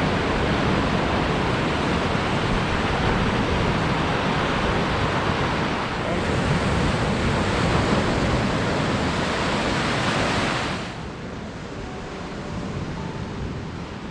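Lake Michigan surf washing onto the shore, with wind buffeting the microphone. About eleven seconds in the sound drops and becomes duller.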